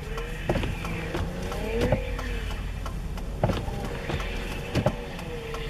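Motor vehicle engine running steadily, with a whine that rises and falls in pitch and a sharp thump roughly every second and a half.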